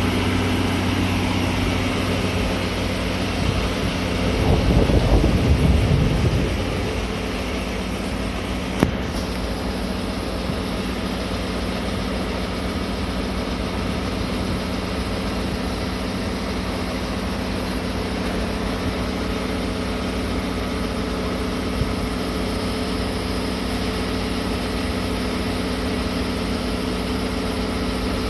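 DE10 diesel-hydraulic locomotive idling at a standstill, a steady engine hum. A short louder rush comes about five seconds in, and a single sharp click near nine seconds.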